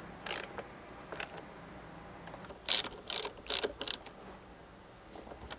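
Ratchet wrench clicking as it re-tightens the side screws that hold the steering-wheel airbag in place: a couple of single clicks at first, then a quicker run of clicks from about three seconds in.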